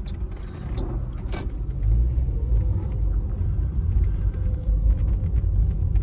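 Low rumble of a car driving slowly, its engine and road noise steady and growing louder about two seconds in.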